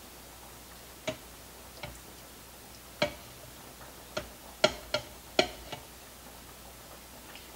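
A silicone spatula tapping and knocking against a glass measuring cup while scraping barbecue sauce out: about eight sharp, irregular clicks, bunched together in the middle.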